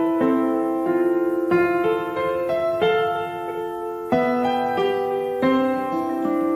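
Background music: a piano playing slow notes and chords, a new one struck about every second.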